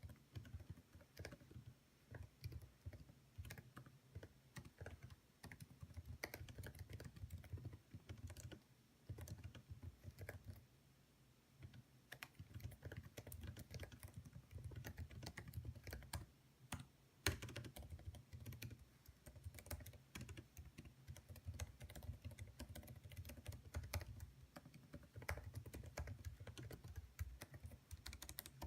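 Quiet, fast typing on a 2016 MacBook Pro's low-travel butterfly-switch keyboard: a steady stream of short key clicks with a few brief pauses, and one louder keystroke about 17 seconds in.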